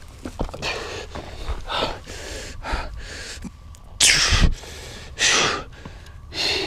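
A man's sharp, gasping breaths, about half a dozen in a row, the loudest two about four and five seconds in: the pained breathing of a mountain biker who has just fallen and hurt his wrist.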